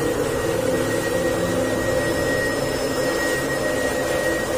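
Water running through a rock water-channel tunnel: a steady rushing drone with a faint high whine throughout.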